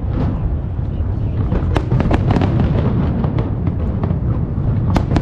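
Fireworks display: aerial shells bursting in a continuous low rumble, with a cluster of sharp cracks about two seconds in and another near the end.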